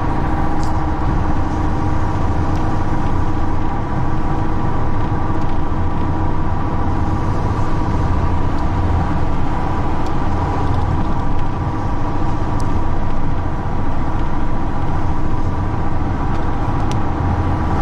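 Steady vehicle rumble: a continuous low drone with a faint steady hum above it, as of a car running.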